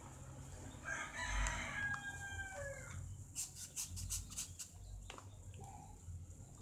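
A rooster crowing once, a call of about two seconds that falls in pitch at the end. Then a quick run of short, scratchy strokes of a felt-tip marker on paper.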